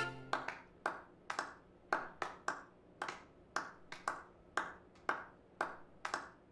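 Thin applause from one or two people clapping slowly and unevenly, each clap echoing in the hall. It is the sparse clapping of a nearly empty house at a curtain call.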